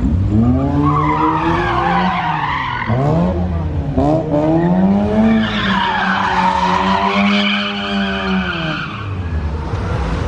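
Car engine revved hard again and again, its pitch climbing and dropping, held high for a few seconds before falling off near the end, with tyres squealing as the car slides.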